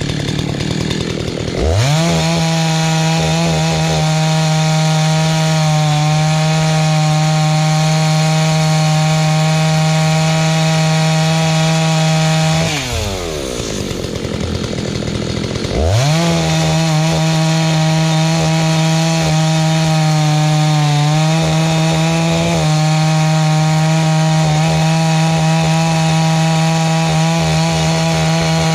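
Rebuilt Husqvarna 288XP two-stroke chainsaw held at full throttle through two long cuts in wood, dropping back to idle for about three seconds between them. These are its first cuts since the rebuild.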